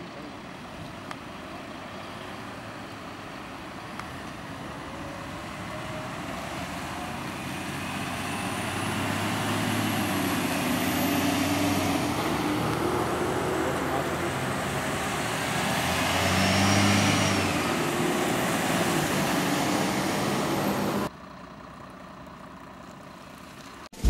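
Heavy emergency vehicles' engines and tyre noise on a wet road, steadily growing louder as the vehicles approach, with a peak about two-thirds of the way in. The sound cuts off suddenly near the end, leaving a quieter background hum.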